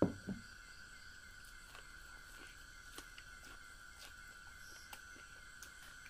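Two dull knocks at the very start, then faint, scattered clicks and smacks of someone chewing boiled corn on the cob.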